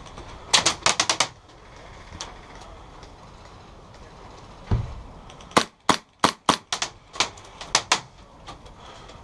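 Gas blowback airsoft gun firing: a quick burst of about six sharp cracks, then, after a dull thump midway, a slower string of about eight single shots.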